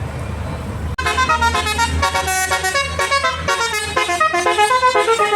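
A bus's telolet basuri musical air horn playing a fast tune of many short stepped notes, starting about a second in, over the low rumble of the bus engine.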